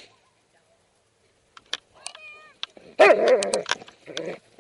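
A sharp knock, then a dog gives a short high whine about two seconds in, followed by loud yelping barks from about three seconds in as it comes right up close.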